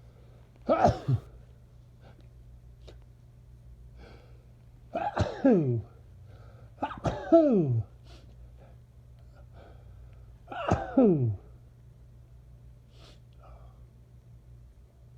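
A person sneezing four times from allergies, a few seconds apart. Each sneeze is a loud, voiced burst that drops sharply in pitch.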